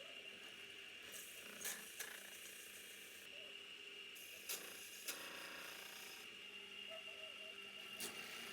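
A handful of short, sharp clicks and knocks, about five, spread irregularly over a faint, steady high-pitched hum.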